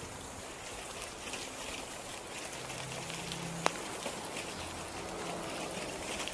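Steady rolling hiss of bicycle tyres on a packed gravel trail, with a single sharp click about three and a half seconds in.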